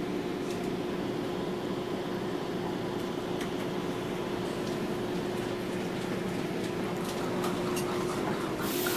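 Steady hum and rumble inside a passenger train car, with a steady low tone running through it and a few faint clicks. A high hiss comes in just before the end.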